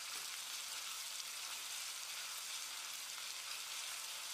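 Crushed ginger and garlic frying in oil with onion-tomato masala in a stainless steel kadai: a steady, low sizzle as the raw smell is cooked off.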